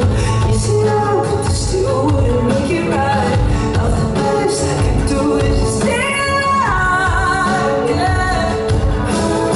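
Live pop music with singing over drums and bass, loud and steady; about six seconds in a high line slides upward in pitch.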